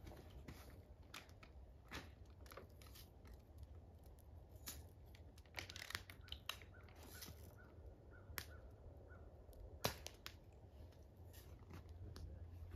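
Faint crackling of a wood fire in a steel fire pit, with scattered sharp pops and snaps, the loudest about ten seconds in, over a steady low rumble.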